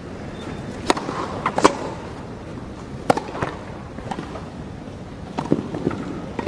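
A tennis ball struck by rackets through a serve and rally: several sharp, separate hits, the first about a second in, over a low steady hush of the crowd.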